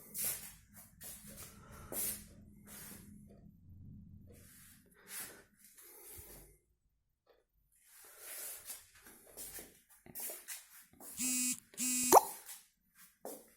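Light clicks and rustling, then near the end two short buzzing tones in quick succession, the second sliding upward in pitch.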